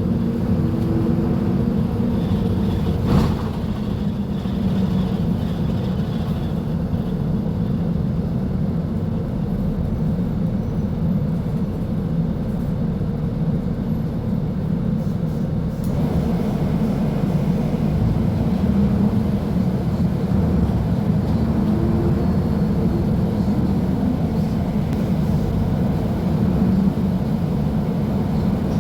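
Mercedes-Benz OF-1724L Bluetec 5 bus's diesel engine running with a steady low rumble, with one brief knock about three seconds in.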